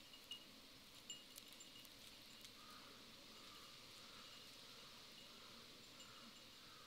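Near silence: faint outdoor ambience with thin, high chirping tones repeating in short bursts, and a few faint ticks in the first second or so.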